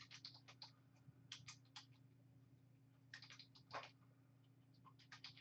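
Faint computer-keyboard typing in short runs of keystrokes, with a faint low hum beneath.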